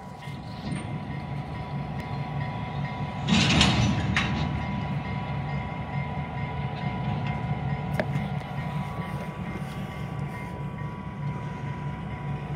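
Diesel-electric locomotive's engine running steadily as it slowly hauls a boxcar, with a steady ringing tone above it. A brief louder rush of noise comes about three seconds in, and a sharp click about eight seconds in.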